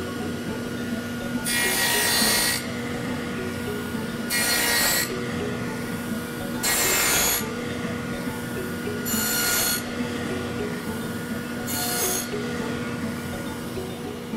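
Table saw with a stacked dado blade, about three-quarters of an inch wide, cutting a half-lap in five short passes about every two and a half seconds. Each pass is a loud burst of under a second as the blade chews out the waste, and between passes the saw runs steadily.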